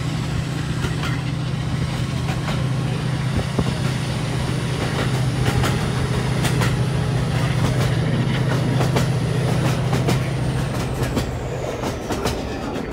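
Class 68 diesel locomotive's Caterpillar V16 engine hauling the train at speed, a loud steady low drone, with the wheels clicking irregularly over rail joints. The engine drone eases slightly near the end.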